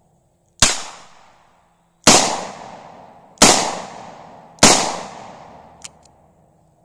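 Four shots from a .45 Colt Charter Arms Bulldog revolver, fired about a second and a half apart, each with a long echo rolling away. A fainter sharp click follows about a second after the last shot.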